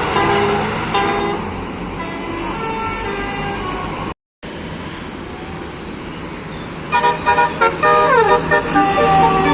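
Bus Basuri telolet horn playing a melody of short multi-tone notes. It fades over the first few seconds, gives way to the bus engine and traffic after a brief cut, then starts again about seven seconds in as quick stabbing notes with a falling slide.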